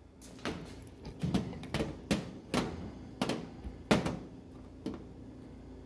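Irregular sharp clicks and light taps, about ten over several seconds, from a stove burner's infinite switch and its wire connectors being handled on a washer lid.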